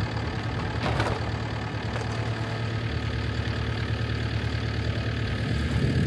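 Diesel engine of a JCB compact track loader idling steadily, with a short rustle about a second in.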